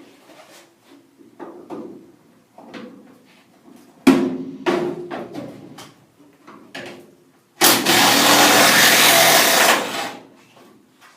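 Knocks and clicks of sockets and tools being handled, then an impact drill hammering for about two seconds, loosening a 5/8 in seat-belt bolt.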